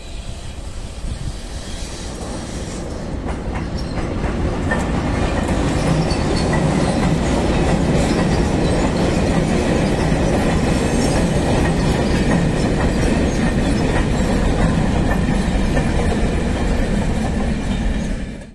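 Freight train of sliding-wall covered wagons rolling past, wheels clacking over the rail joints. The noise builds over the first few seconds, holds steady, then cuts off suddenly near the end.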